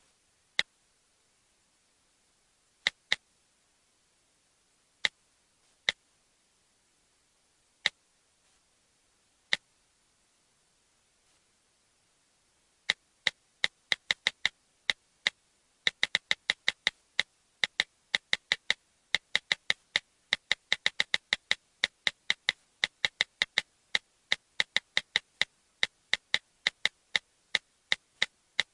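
iPad button clicking: short, sharp clicks, a few single ones at irregular intervals at first, then from about halfway in a fast run of many clicks, several a second.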